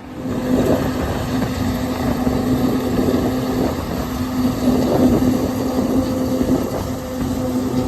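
Heavy farm machinery running steadily with a constant pitched hum.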